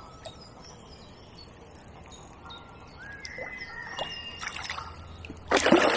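A hooked tench splashing at the surface close in, a loud burst of about a second near the end, with songbirds singing faintly throughout.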